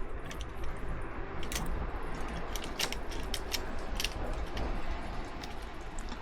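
Scattered light clicks and rattles of a camera clamp mount being handled and fitted onto motorcycle handlebars, over a low steady background rumble.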